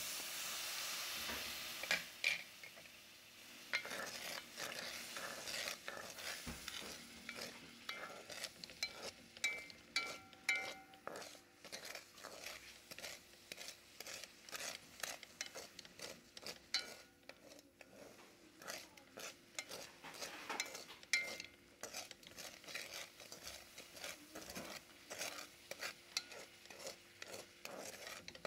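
A wooden spatula stirring and scraping sugar around a non-stick pan as the sugar melts into syrup, in many short, irregular strokes. It opens with a few seconds of steady hissing as liquid hits the hot pan.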